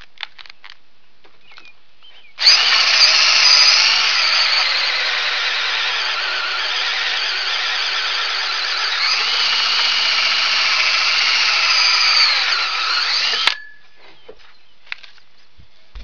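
Cordless drill driving a 1 1/2-inch hole saw through a wooden board, cutting a birdhouse entrance hole: a steady high-pitched whine of about eleven seconds that starts a couple of seconds in and cuts off suddenly near the end, its pitch dipping and recovering partway through as the saw bites.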